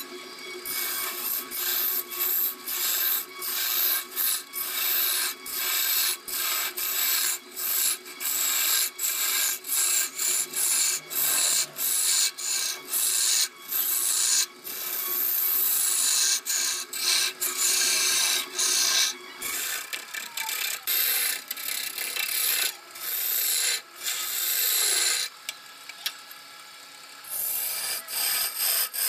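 A hand-held turning tool cutting into a block of wood spinning on a lathe, in a long run of short, repeated scraping strokes over the lathe's steady hum. The cutting pauses briefly near the end, then resumes.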